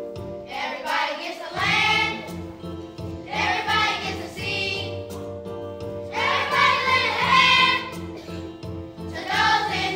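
Children's show choir singing over sustained instrumental accompaniment, in four phrases of one to two seconds each with short gaps between.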